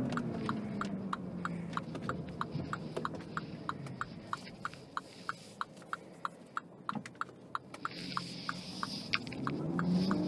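Turn-signal indicator ticking steadily inside a MINI Cooper S cabin, about three clicks a second. Under it the 2.0-litre turbocharged four-cylinder engine runs low, its note rising near the end as the car pulls away.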